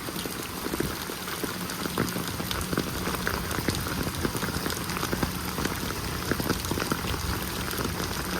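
Rain falling steadily, a dense run of drops ticking on surfaces.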